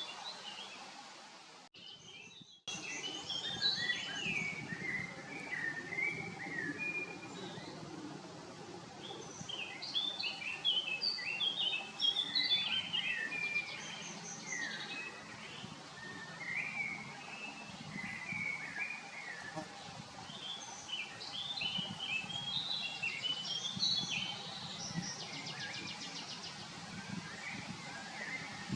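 Small birds chirping and singing in quick, varied phrases throughout, over a low background rumble. The sound drops out briefly about two seconds in.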